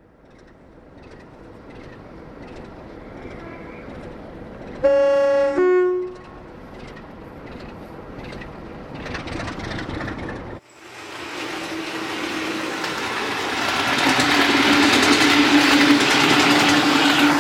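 Train sounding a short two-note horn blast about five seconds in, with a rumble under it. After a sudden cut, a train runs past, its loud rushing and rumbling noise building toward the end.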